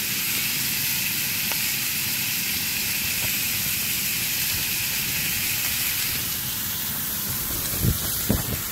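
Meat and sliced mushrooms frying in a pan on a camping stove: a steady sizzling hiss, with a few low knocks near the end.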